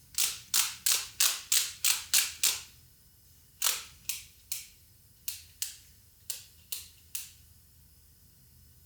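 Ratchet of a torque wrench clicking as the front hub bearing nut is tightened toward 43 foot-pounds: a quick run of sharp clicks, about three a second, then a slower, uneven string of clicks.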